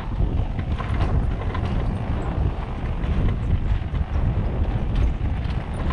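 Motorcycle running along a rough dirt road, its engine note low and steady, with frequent knocks and rattles from the bumps and some wind on the microphone.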